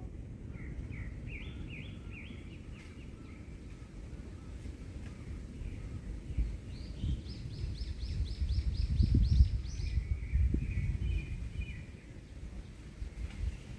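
Songbirds singing: a short run of repeated rising notes, then a quicker, higher run of about ten notes in the middle, then softer warbling. Wind blows on the microphone throughout as a low rush, gusting strongest about two-thirds of the way in.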